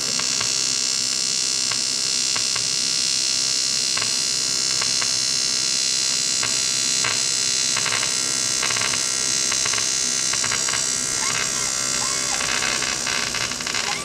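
Eastwood TIG 200 welding arc buzzing and hissing steadily, broken by irregular crackles as the current is pulsed with a homemade torch-trigger pulse setup, which is not working as expected.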